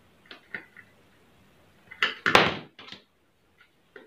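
Small clicks and taps of hand tools and wire being handled on a tabletop, with one louder, sharp clatter about two seconds in, as a tool is picked up or set down.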